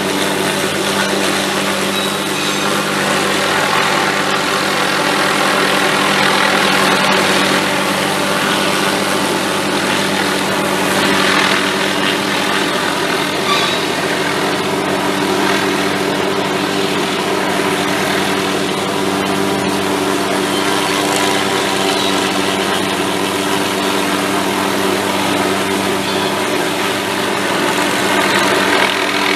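Helicopter engine and rotor running steadily, a continuous drone with an even, unchanging pitch.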